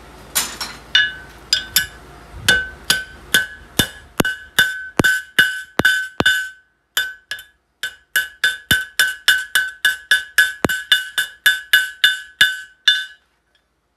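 Hand hammer striking a hot nail held in a nail header on the anvil, forming a rose head: a steady run of sharp ringing metallic blows about two a second, with a short pause about halfway through.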